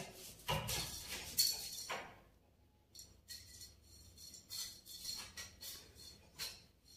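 Irregular light clinks and taps as a kitten bats and tugs at a hair band on a tiled floor against a wooden door, busiest in the first two seconds, then scattered taps.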